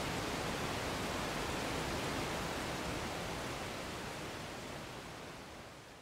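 Waterfall rushing: a steady, even wash of water noise that fades away over the last three seconds.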